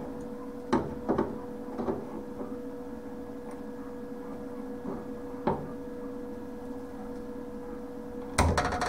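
Locking pliers and a sheet-steel patch panel knocking and clicking as the panel is clamped to a car's inner wheel tub: a few separate sharp knocks over a steady hum, then a louder burst of rattling near the end.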